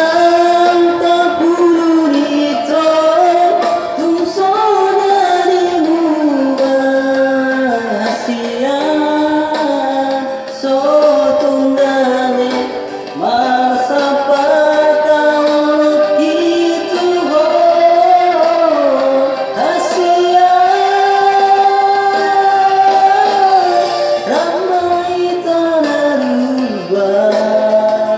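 A Batak Toba song sung by one voice over instrumental accompaniment. The voice holds long notes that slide up and down between phrases.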